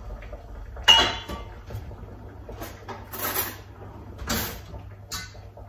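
A metal pot lid set down with a sharp ringing clink about a second in, followed by a few short sliding, rattling noises as a kitchen drawer is pulled open.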